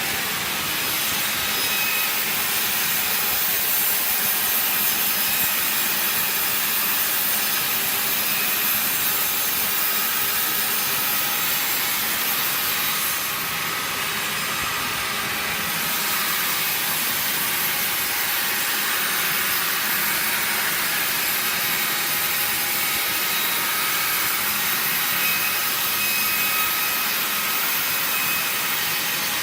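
Sawmill machinery running and sawing wood: a steady, hissing mechanical whine that holds level throughout, with a brief dip in the highest part around the middle.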